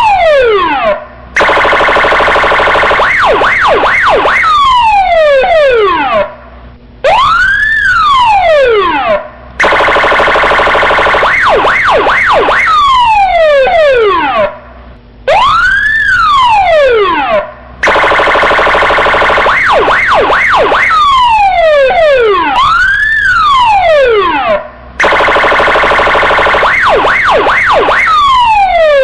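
Police siren sounding in a repeating cycle about every eight seconds: a rising-and-falling wail, a harsh buzzing horn tone with a few quick rising chirps, then falling sweeps, with a brief drop between cycles.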